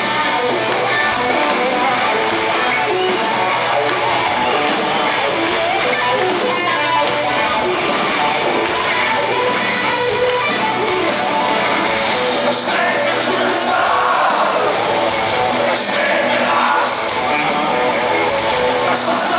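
Rock band playing live with electric guitars and drums, heard loud through a phone in the audience. A voice singing comes in during the second half.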